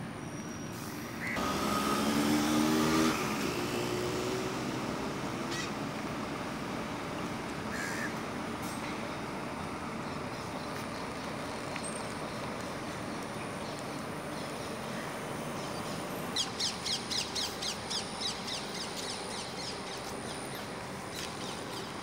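Outdoor background noise. About a second in, a loud pitched sound lasts about two seconds. Later comes a quick run of about a dozen high chirps that fade away.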